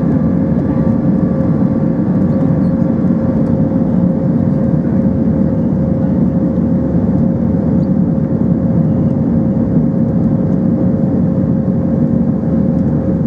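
Airbus A320 airliner in flight after takeoff, heard from inside the aircraft: a steady, loud rush of engine and airflow noise with a constant hum running through it.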